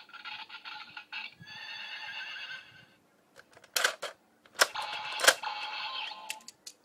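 Kamen Rider Wizard toy belt playing the Unicorn Wizard Ring's electronic sound effects through its small, tinny speaker. Three sharp plastic clicks come in the second half as the ring is handled, with more toy sound between them.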